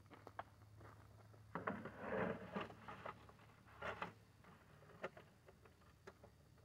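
Quiet handling sounds as raw ribs are laid from an aluminium foil pan onto the grate of an offset smoker: scattered light clicks and scrapes, with a few louder rustles a couple of seconds in and again near four seconds, over a low steady hum.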